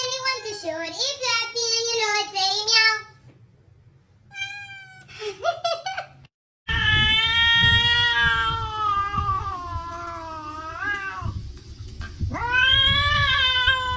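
Domestic cat yowling: short meows a few seconds in, then two long drawn-out meows, each held for several seconds with a slight rise and fall in pitch.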